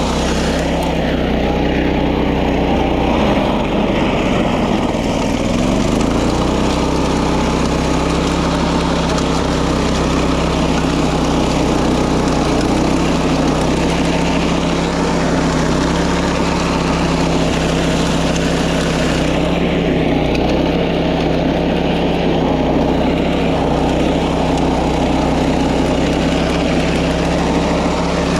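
Small petrol engine of a grass-cutting machine running steadily at working speed, briefly dropping and then picking back up in speed a few seconds in.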